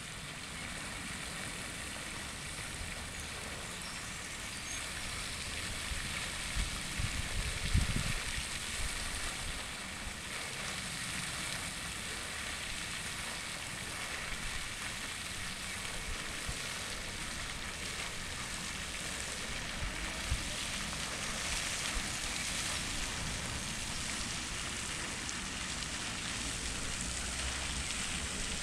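Steady hiss of outdoor background noise, with a few low bumps about eight seconds in.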